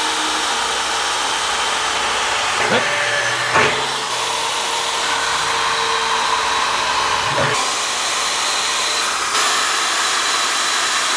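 Corded electric power tool running steadily against a rusty steel 55-gallon drum, a continuous loud hiss whose tone shifts slightly a couple of times.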